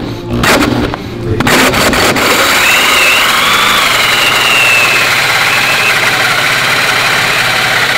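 Power drill turning a 4-inch hole saw through a wooden board. It gives a couple of short stop-start bursts, then runs steadily as the saw teeth cut into the wood.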